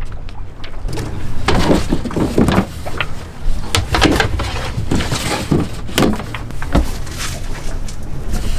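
Irregular knocks, bumps and sliding sounds of a fibreglass yacht's companionway hatch being opened and someone climbing down into the cabin, over a steady low rumble.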